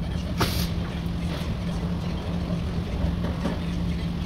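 Steady low machinery hum of a body shop, with a short sharp noise about half a second in and a few faint clicks.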